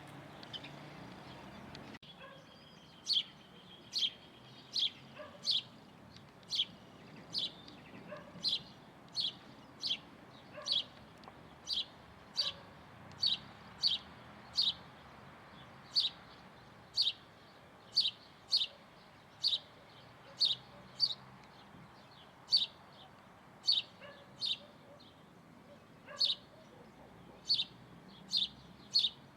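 A bird repeating a short, sharp, high chirp, about one a second.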